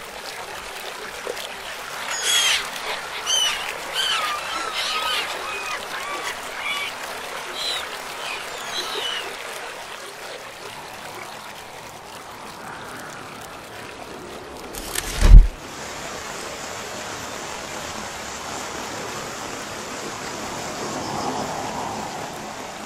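Nature ambience: birds calling in short chirps over a steady rushing noise for the first several seconds. About fifteen seconds in comes a single loud deep boom, then the steady rushing goes on.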